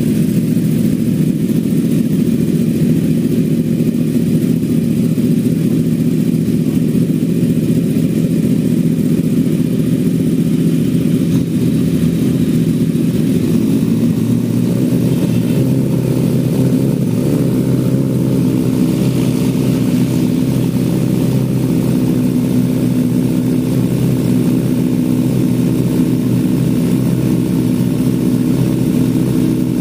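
Superbike inline-four engine idling steadily, with no revving.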